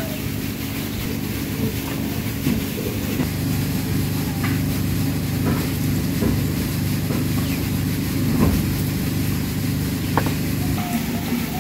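A steady low hum, with a few light, sharp taps spaced out through it as two tomatoes are cut with a knife.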